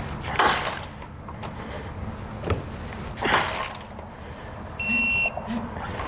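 Torque wrench being worked on base plate bolts: two rasping ratchet strokes, then about five seconds in a steady half-second electronic beep, the wrench signalling that the set torque is reached.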